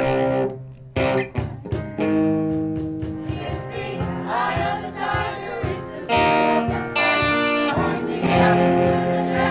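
A small choir singing a song together in held notes, accompanied by a strummed guitar.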